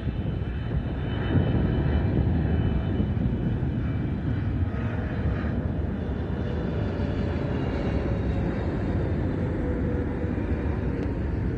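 Jet airliner passing the airport perimeter, its engines making a steady loud rumble with faint whining tones that fall slowly in pitch as it goes by.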